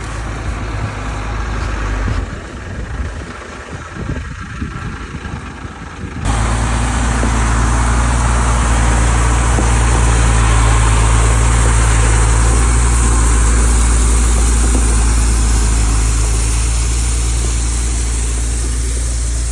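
Motor vehicle engine running. About six seconds in, it cuts abruptly to a much louder, steady engine sound with a deep low hum and a rushing noise.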